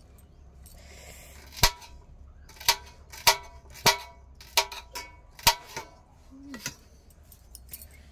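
A kitchen knife knocking against a steel thali about eight times over several seconds, each sharp knock leaving the plate briefly ringing.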